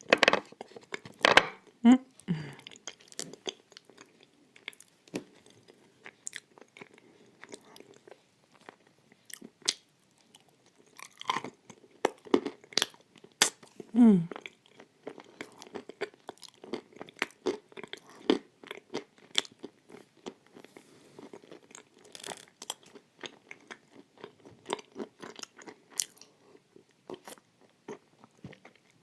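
Close-miked mouth sounds of edible clay with white chalk paste being bitten and chewed: many sharp crunches scattered irregularly with chewing between them. Twice, near the start and about halfway, a short voice sound falls in pitch.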